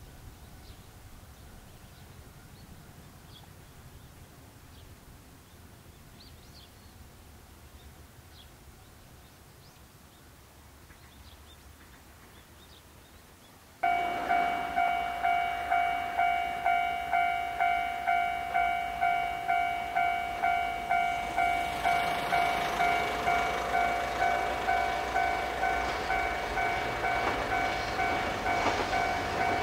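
Faint outdoor quiet, then about halfway through a level-crossing warning bell starts suddenly and rings on in quick, even dings, about two a second. Near the end the Yoro Railway 'Rabbit Car' electric train approaches, its rumble rising under the bell.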